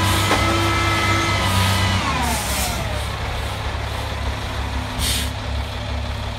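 Roll-off truck's diesel engine revved up with a whine from the hydraulic hoist as the container of wet snow is pulled onto the truck; about two seconds in the whine falls in pitch as the engine drops back toward idle. A short burst of air hiss comes about five seconds in.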